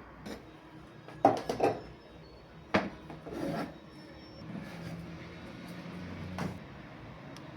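A few sharp knocks and a short scraping rub: household items such as pantry containers being handled, set down and slid into place.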